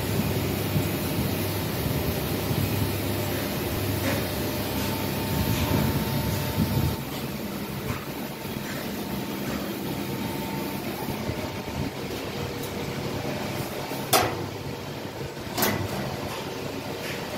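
Tanchem stainless steel mass mixer running with a steady mechanical hum. The deep part of the hum eases about seven seconds in, and two sharp knocks come near the end.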